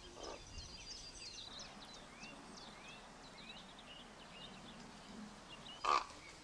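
Small songbirds chirping and whistling throughout. A raven gives a faint harsh call right at the start and a short, loud harsh call about six seconds in.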